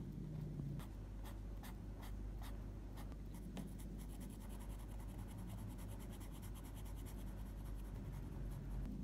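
Pen and marker tips scratching on lined paper: a few separate pen strokes, then from about four seconds in, rapid back-and-forth colouring strokes with a marker, many a second.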